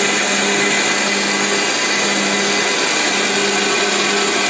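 Pigeon mixer grinder running steadily on its lowest speed, its motor whirring as it churns cream and curd in the steel jar to bring out butter. A steady hum underlies the whir.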